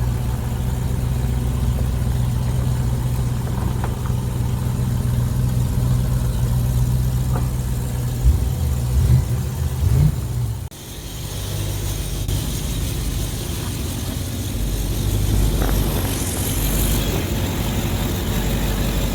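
Vehicle engine idling steadily, revved in a few short blips about eight to ten seconds in; near the middle the sound cuts abruptly to a hissier running engine.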